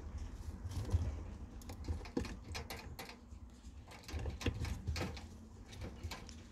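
Ferrets eating dry food from a bowl and licking at a water bottle's metal drinking spout: irregular small clicks and crunches, over a low rumble.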